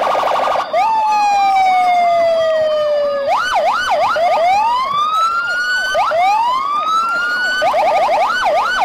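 Electronic siren sounds layered over one another, with a fast warble throughout. A long, slowly falling wail comes in the first few seconds, followed by quick swooping whoops and two long rising sweeps.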